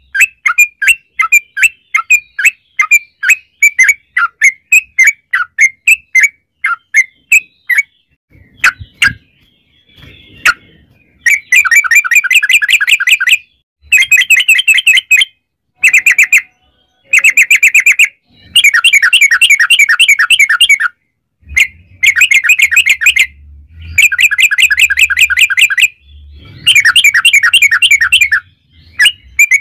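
Yellow-vented bulbul (trucukan) calling: a run of separate sharp chirps, about three a second, then, after a short pause, long rapid chattering trills of two to three seconds each with brief breaks between them, the fast 'ropel' song used to lure other bulbuls into answering.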